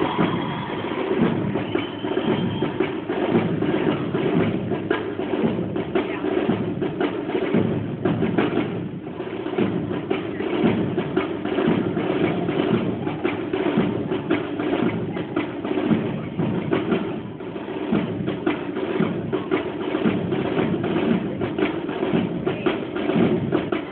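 Military band playing a march, its bass and snare drums beating a steady marching cadence.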